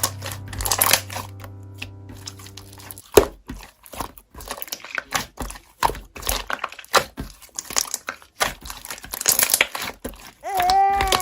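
Slime being squeezed and poked, making irregular crinkly clicks and crackles.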